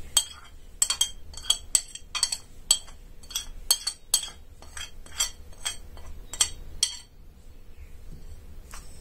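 Metal spoon clinking and scraping against a glass plate and a bowl as ground spices are scraped off the plate into the bowl: quick, bright taps about twice a second, thinning out about seven seconds in with a couple more near the end.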